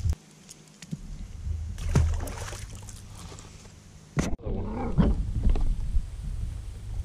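A small dog giving a short whining growl about four and a half seconds in, just after a sharp knock, over a steady low rumble.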